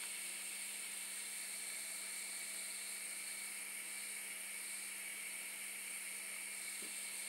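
Gas hob burner hissing steadily under a tin of rosin flux being warmed.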